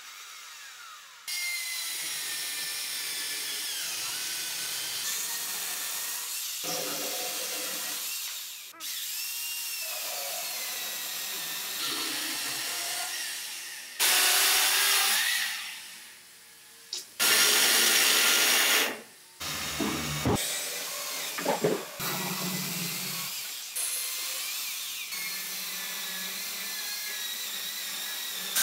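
Corded electric chainsaw running and cutting into solid wood, a steady high whine that stops and starts several times, with two louder stretches about halfway through as the chain bites harder into the wood.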